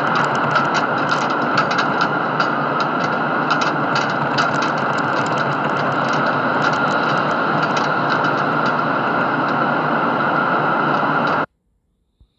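A high-rise building rattling and rumbling as an earthquake shakes it: a steady, loud rumble with a constant stream of rattling clicks. It cuts off suddenly near the end.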